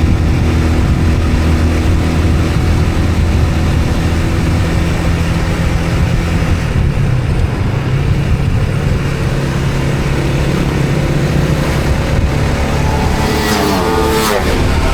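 Motor vehicle engine running steadily on the move, its pitch shifting about halfway through. Near the end a quick rising whine sounds, as of the engine revving up or another vehicle accelerating past.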